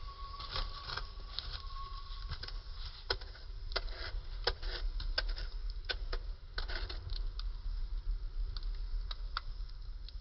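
Fire crackling, with irregular sharp pops and snaps over a steady low rumble. A faint steady tone stops about two seconds in.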